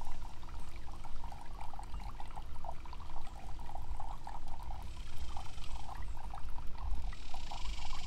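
Water trickling and splashing down a small faux-rock cascading garden fountain, with a low rumble underneath.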